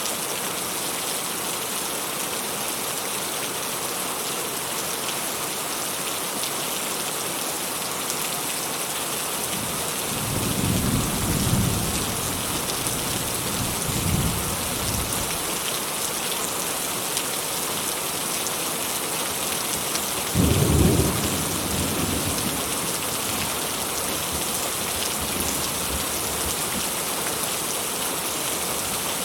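Steady rain falling, with distant thunder rumbling low three times: about a third of the way in, again shortly after, and loudest about two thirds of the way through.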